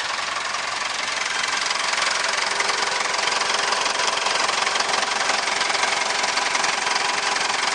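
Mitsubishi 4D56 2.5-litre turbo diesel engine ticking over at a steady idle.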